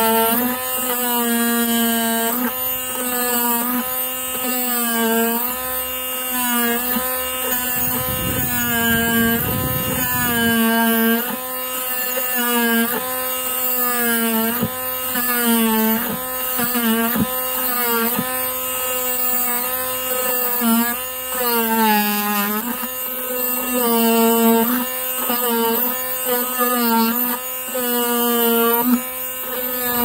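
Parkside cordless oscillating multi-tool running with a flat scraper-type blade, stripping paint off a wooden board. Its steady high buzz sags in pitch every second or two as the blade is pushed into the surface and loaded, then picks back up. There is a brief low rumble of scraping and handling a few seconds in.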